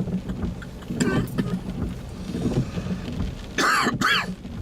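Rain falling on a car, heard from inside the cabin over a low steady engine hum. About three and a half seconds in comes a brief high squeak whose pitch bends.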